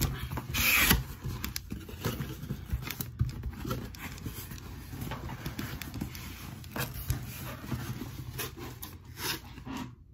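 Cardboard boxes and packaging being handled and pulled apart: irregular rustling and scraping with small knocks, a louder rustle about a second in.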